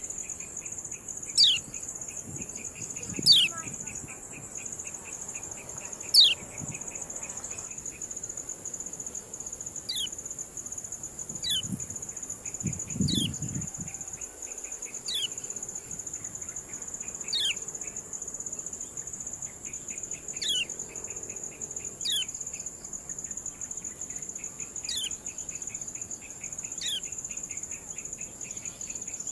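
Kecial kuning giving sharp 'ciak' call notes, each a quick downward slide, repeated every one to three seconds. The loudest come in the first six seconds. A steady high insect-like drone runs underneath, with a buzzy trill at times.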